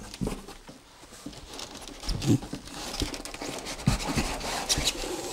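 Cardboard box and packaging rustling and scraping as a boxed loudspeaker is worked out of its carton by hand, with a few dull knocks and bumps against the box.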